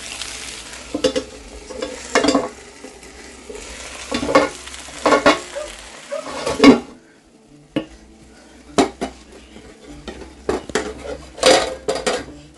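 Sliced potatoes and onions sizzling in a frying pan while a metal spoon stirs and knocks against the pan. About two-thirds of the way through, a loud clank comes as a metal lid goes over the pan, the sizzle drops off, and a few more clinks of metal on metal follow.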